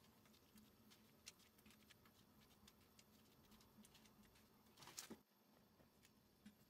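Near silence: faint room tone with a few soft scattered ticks, a small cluster of them about five seconds in.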